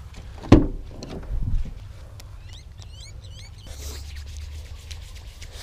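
Vehicle door latch clicking open as the handle is pulled, then a softer thump as the door swings. After that a bird calls in a quick run of short chirping notes.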